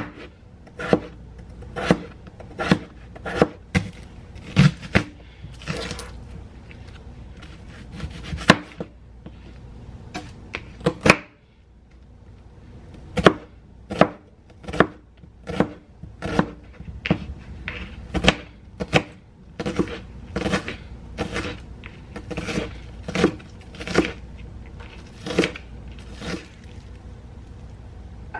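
Knife chopping vegetables on a cutting board: a run of sharp knocks about one to two a second, with a short pause about eleven seconds in.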